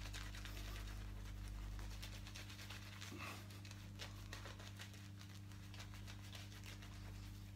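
Feather SS AC kamisori razor blade scraping through lathered stubble: a quiet, dense run of fine crackles, over a steady low hum.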